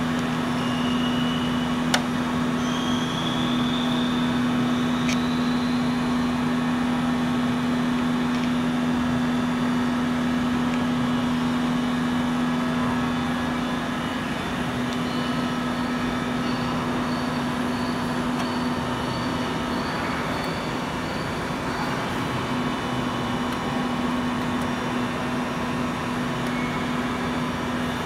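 A steady, low mechanical hum of running machinery, with a single sharp click about two seconds in.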